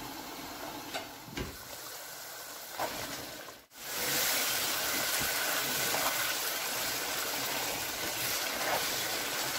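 Chicken curry bubbling quietly in a pan under a glass lid. After a sudden break about four seconds in, it gives a louder, steady sizzle as it fries uncovered with its water cooked off, with a few light knocks of the spatula stirring it.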